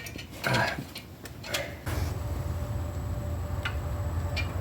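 Light metallic clicks and clinks of a hub bolt and hub parts being handled and fitted while lining up the new wheel hub assembly, then a steady low hum sets in about two seconds in, with a few small ticks over it.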